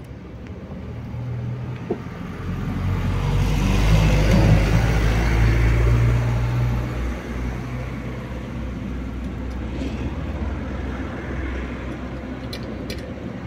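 A motor vehicle passing: its engine and road rumble swell to the loudest about four to six seconds in, then fade to a steady low hum. A couple of sharp clicks near the end.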